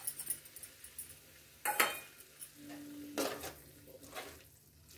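A steel bowl clinking as it is tapped over a kadhai to empty chopped coriander, then a metal ladle clattering and scraping against the pan as the potato and bean curry is stirred. The loudest clatter comes about two seconds in, with more strokes near three and four seconds.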